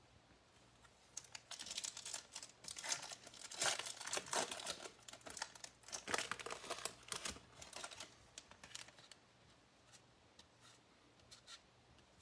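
A baseball card pack wrapper being torn open and crinkled by hand, a dense crackling that runs from about a second in to about eight seconds. A few faint clicks follow.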